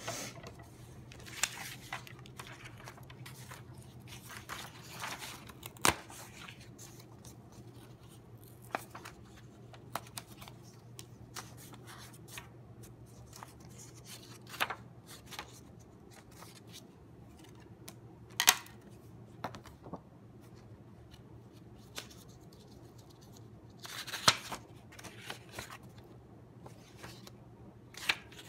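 Construction paper and paper cut-outs being handled on a desk: rustling and sliding of sheets, with sharp taps and clicks now and then, over a faint steady low hum.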